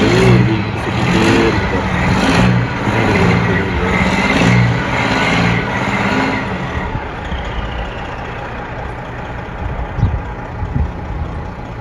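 Vehicle engine revving in repeated surges about once a second, typical of a truck stuck in snow trying to pull free. The surges then give way to a steadier, fading engine sound.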